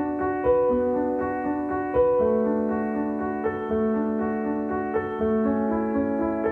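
Background music: slow piano playing held notes and chords.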